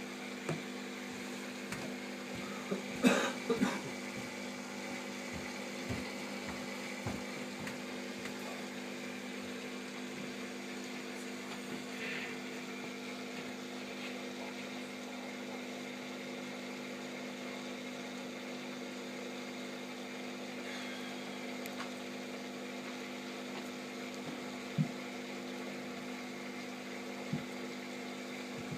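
Steady electric hum, typical of a reef aquarium's water pumps running, with a short cluster of knocks about three seconds in and two single knocks near the end.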